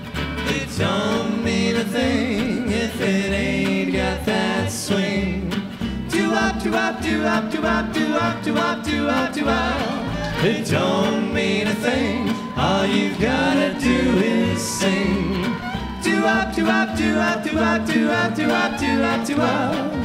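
Live gypsy jazz band playing a swing number: acoustic guitars strumming a steady rhythm over a walking upright bass, with a gliding lead line on top.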